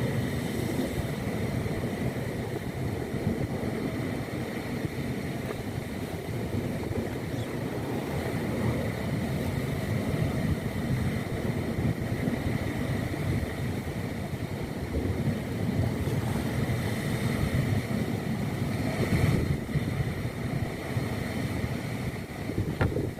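Steady rush of wind on the microphone over a small boat's motor running, with a faint steady whine.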